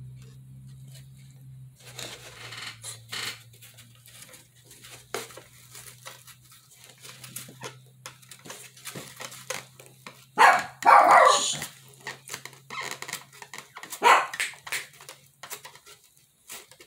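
Dogs barking, loudest in a burst about ten seconds in and again about four seconds later.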